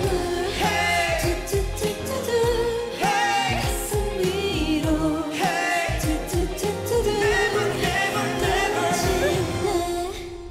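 K-pop song performed live: sung vocals over a steady beat, with the music dropping away near the end as the song finishes.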